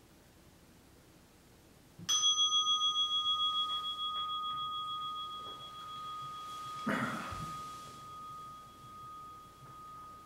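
Meditation bell struck about two seconds in, ringing with a clear tone that wobbles as it slowly fades; it is struck again more softly about five seconds later, with a short rustle of cloth. It marks the end of the sitting period.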